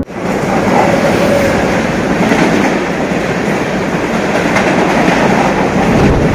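Electric passenger trains passing beneath an overhead bridge: a loud, steady noise of wheels and coaches running on the tracks.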